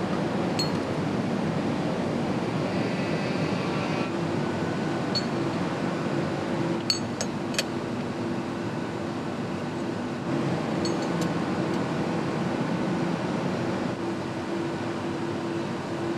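Steady hum of machinery in a factory hall, with a few light metallic clinks of parts and tools being handled, three of them close together about seven seconds in.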